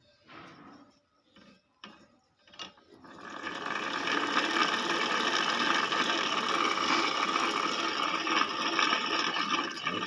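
A few light knocks, then about three seconds in a small machine starts up and runs steadily with a dense mechanical whirring clatter.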